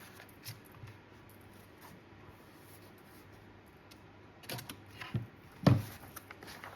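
Paper being handled and laid flat on a copy stand: soft paper rustles and small taps, with a few sharper handling sounds late on and one louder knock near the end.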